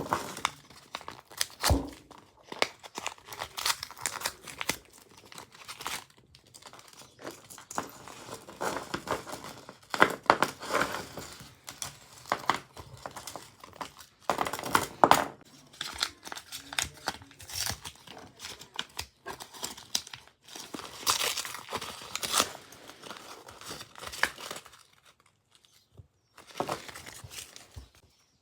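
Packaging being crinkled and torn open by hand in irregular bursts, with short pauses and a few sharp crackles between handfuls.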